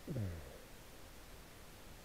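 A single short vocal sound, falling quickly in pitch, about a tenth of a second in, over a faint steady hiss.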